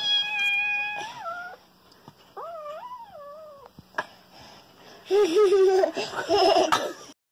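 A toddler whimpering and crying while a small kitten mews: a few high, drawn-out wavering cries with pauses between them, louder and rougher near the end, then stopping abruptly.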